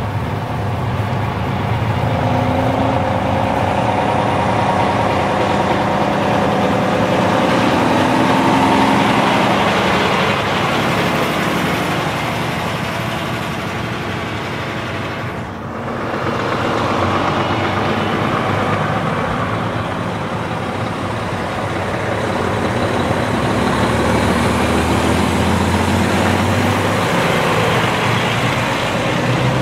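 Heavy trucks driving past with their diesel engines running loudly. The engine tone swells and fades as they go by, with a brief lull about halfway through before the next truck comes through.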